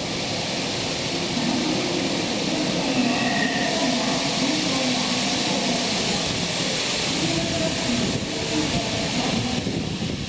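Electric subway train on the Fukutoshin Line running along the platform: a loud, steady rush of wheels and running gear with a wavering hum. It builds over the first second or so, then holds.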